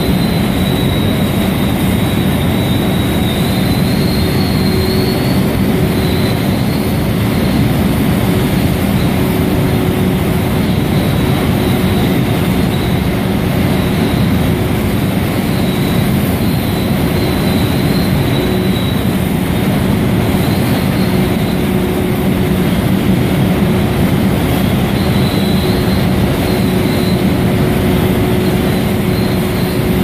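Steady loud industrial roar of a steel melt shop while an electric arc furnace taps molten steel into a ladle, with a constant low hum and a faint high whistle running through it.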